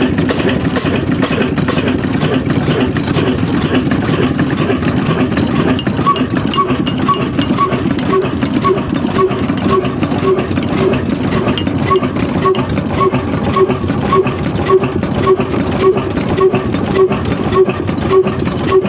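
Old Ruston Hornsby stationary diesel engine running at slow speed. Its exhaust beat settles into a steady, even rhythm of about two beats a second from about a third of the way in.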